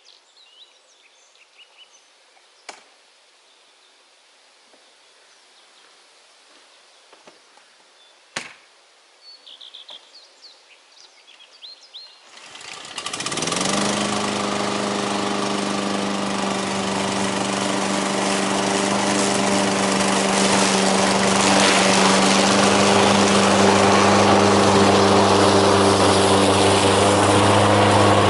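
Birds chirping with a couple of sharp knocks, then about halfway through the MTD 53SPKV HW Advance petrol lawn mower's engine starts with a quick rise in pitch and settles into a steady run.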